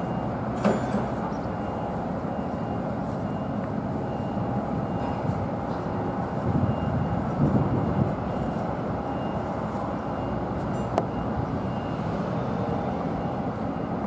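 Construction-site and street ambience: a steady low rumble of engines and machinery, swelling louder for a couple of seconds in the middle, with a sharp click or knock near the start and another near the end.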